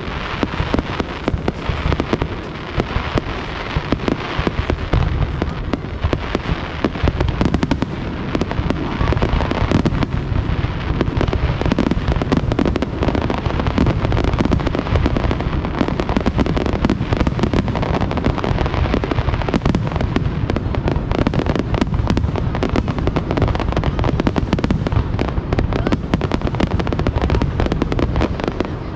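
Fireworks display: a dense, continuous barrage of bangs and crackling, growing louder and thicker about eight seconds in.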